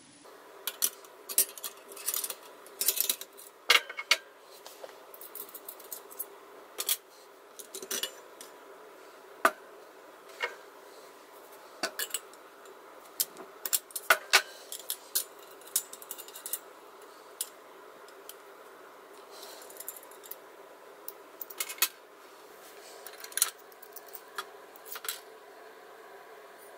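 Metal parts of a Coleman 200A gasoline lantern and small tools clinking and tapping against each other and a stainless steel tray as the lantern is taken apart to remove its brass generator. Short, sharp knocks come at irregular intervals, some much louder than others.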